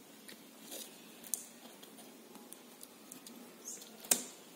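Faint rustling and small clicks of a sheet of magnetic alphabet letters being handled and letters picked out of it, with one sharper click near the end.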